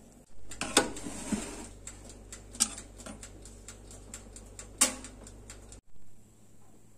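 Kitchen utensils knocking and clinking against a metal cake pan as cake batter is scraped in: three sharp knocks among many light ticks and some scraping, cutting off abruptly near the end.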